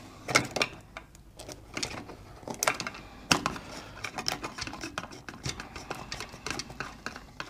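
Irregular small clicks and taps of hands handling a plastic switch enclosure and its wires, with a few sharper clicks.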